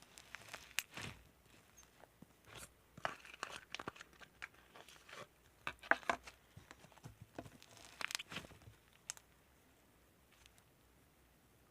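White slime being squeezed, stretched and pulled apart by hand, giving irregular crinkly, crackling and tearing sounds in small clusters with short pauses between.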